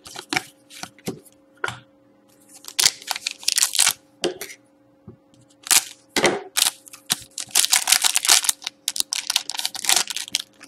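Foil wrapper of an Upper Deck Artifacts hockey card pack crinkling and tearing as it is handled and pulled open: dense runs of sharp crackles through most of the second half. Before that come a few light clicks of cards being handled, and a faint steady hum runs underneath.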